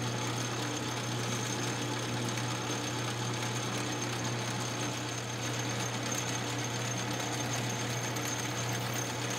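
Small metal lathe running steadily, its motor humming with a thin high whine, as the chuck turns a Delrin bar whose end is being faced and center-drilled.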